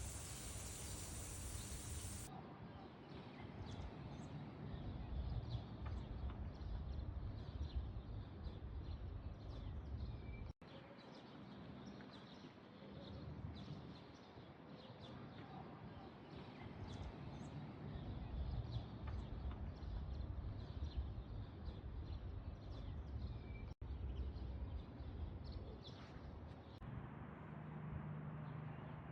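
Small birds chirping in many short calls over a steady low outdoor rumble, with two brief dropouts where the footage is cut.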